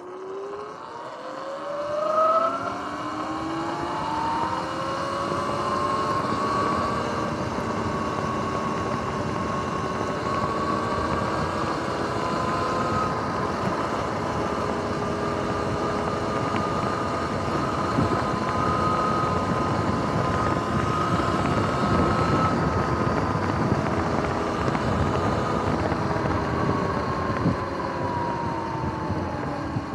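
Sur-Ron X electric dirt bike's motor and drive whining. The whine rises in pitch over the first few seconds as the bike speeds up, holds nearly steady while cruising, then falls near the end as it slows. Under it runs a steady rush of wind and road noise.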